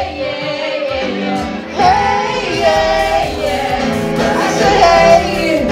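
Music with singing: a melodic voice holding and sliding between notes over a steady accompaniment.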